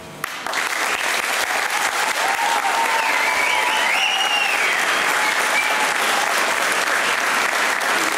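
Audience applause that breaks out about half a second in and goes on steadily, with a few voices cheering around three to four seconds in.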